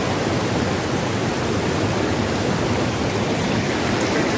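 Shallow stream water rushing over rocks, a steady loud rush that does not change.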